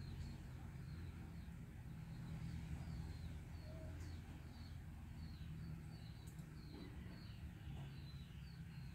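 Faint series of short, high chirps from a small bird, each falling slightly in pitch and repeated a few times a second, over a low steady hum.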